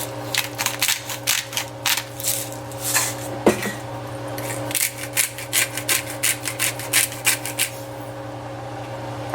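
Salt and pepper being dispensed onto asparagus: a run of quick, irregular rasping clicks that stops about eight seconds in.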